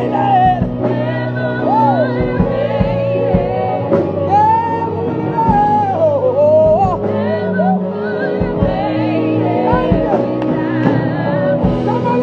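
Live gospel music: a man's voice singing with gliding, bending runs over held instrumental chords and drum hits.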